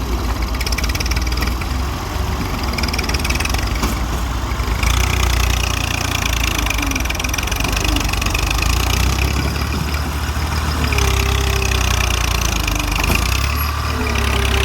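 Heavy diesel engine of an excavator running steadily. A higher whine comes in about five seconds in and again near eleven seconds.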